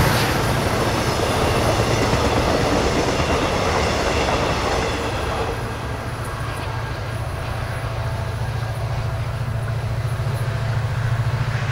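The coaches of a diesel-hauled Mugunghwa-ho passenger train rolling past on the track, with a steady low hum underneath. The rolling noise thins out about halfway through as the last coach goes by and the train draws away.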